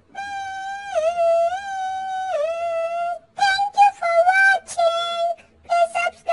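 High, synthetic-sounding electronic melody: a long held note that dips twice, then a run of quick, short notes from about halfway through.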